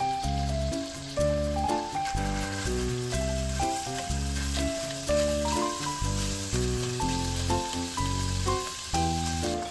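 Ground beef sizzling as it fries in a nonstick pan, broken up with a spatula, under background music: a melody moving in short stepped notes over a bass line.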